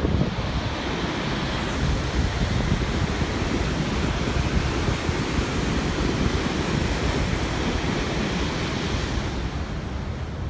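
Steady rushing of water shooting from the Buffalo Bill Dam's outlet jet into the river in the gorge below, with wind buffeting the microphone; the rush eases slightly near the end.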